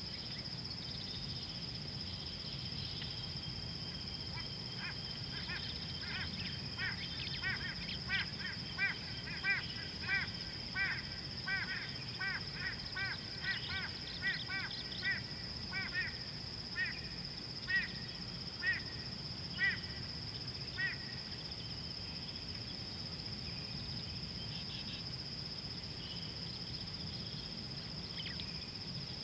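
A bird gives a long series of short, harsh calls, about two a second, slowing to about one a second before stopping. Behind it, insects keep up a steady high-pitched trill.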